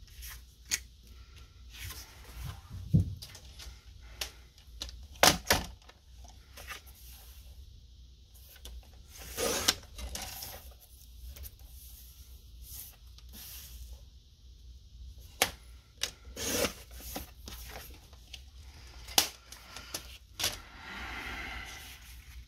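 Cardstock being handled on a cutting mat and on a Fiskars paper trimmer: several sharp clicks and knocks as pieces are set down and the trimmer is worked, with a few short swishes of paper sliding.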